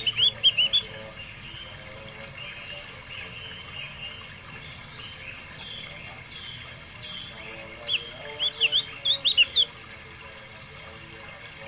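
A pet songbird singing: a quick run of sharp, loud chirps that bend up and down at the start, softer calls in between, and another fast burst of chirps about eight to nine and a half seconds in.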